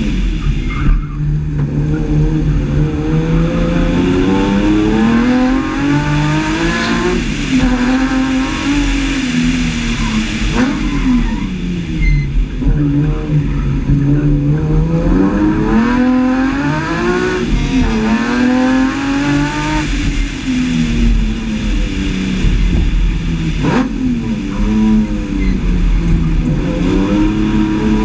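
BMW E30's S50B32 3.2-litre straight-six engine driven hard, its pitch climbing and falling again and again as it is revved out, lifted off for corners and shifted, with brief sharp breaks at each lift or gearchange.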